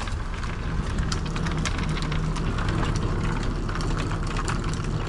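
Plastic base of a portable basketball hoop dragged across wet asphalt: a continuous rough scraping rumble with scattered small ticks and knocks.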